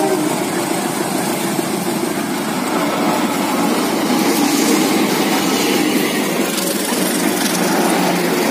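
CC201 diesel-electric locomotive passing close by with its engine running, followed by its passenger coaches rolling past; a steady, even rumble.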